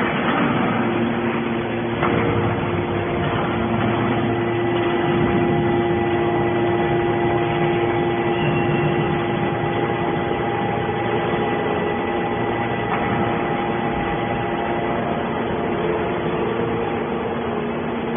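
Hydraulic scrap-metal baler running: the steady hum and whine of its hydraulic power unit, with a couple of short knocks.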